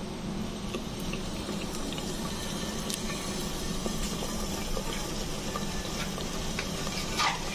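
Onion, garlic and ginger paste frying in oil in an aluminium pot, sizzling and bubbling steadily with many small pops. A short louder chirp-like sound comes near the end.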